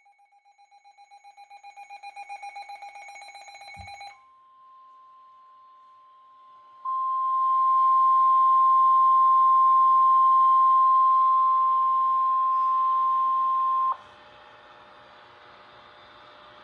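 A rapidly pulsing electronic alert tone swells in loudness for about four seconds, then the steady single-pitch weather radio warning alarm tone sounds, faint at first and then loud for about seven seconds, before cutting off abruptly into radio static and hum.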